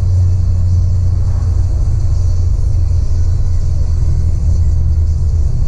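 Steady low road and engine rumble of a car driving along, heard inside its cabin.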